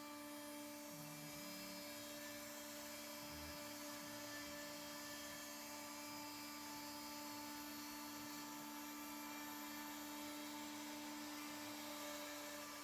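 Spindle of a Mechmate CNC router running steadily, a constant hum with several fixed tones and a hiss above them.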